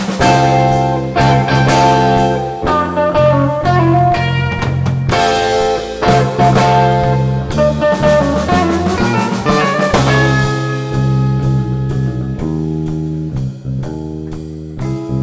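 Band music: guitar melody over bass and a drum kit, with a bluesy rock feel.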